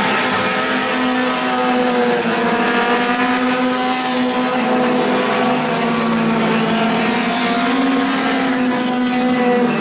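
Several four-cylinder dirt-track race cars running at speed around the oval, their engines blending into a steady drone that wavers slightly in pitch.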